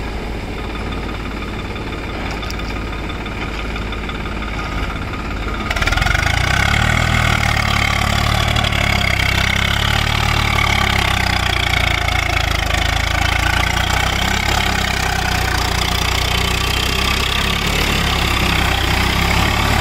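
Swaraj 744 tractor's diesel engine running steadily in deep mud, with its rear rotavator churning wet soil. About six seconds in, the sound gets louder and rougher and stays that way.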